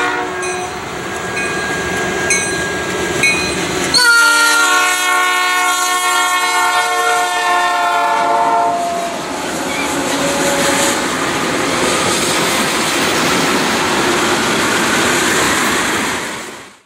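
A diesel freight locomotive's multi-chime air horn: one blast cuts off just at the start, and a second long blast begins suddenly about four seconds in and holds for about four seconds. After it comes the steady noise of a long string of tank cars rolling past on the rails, fading out at the end.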